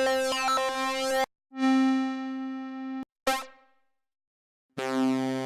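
ARP 2600 analog synthesizer sounding a string of separate buzzy tones on the same note, with short pauses between them: first a bright note with quick filter changes, then a held note that grows duller as it goes, a short burst, and after a pause a fuller note with a lower octave added.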